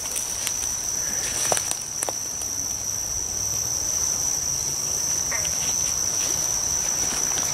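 Night insects trilling steadily at one high pitch, with a few light rustles and snaps of grass underfoot in the first couple of seconds.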